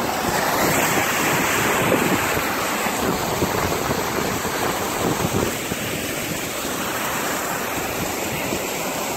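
Wind buffeting the microphone over the steady rush and splash of water along the hull of a JPK 38 yacht under sail.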